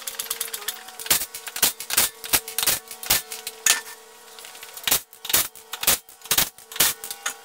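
Hydraulic floor jack being pumped to lift the car: a run of sharp, irregular clicks and metal clanks over a steady low hum.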